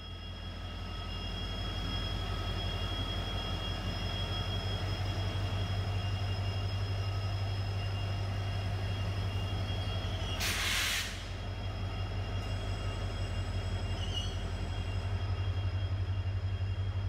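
Indian Railways WDG4 diesel-electric freight locomotive running past slowly, its engine giving a deep steady hum with a few steady high tones above it as it hauls a train of open wagons. A short sharp hiss of air cuts in about ten seconds in.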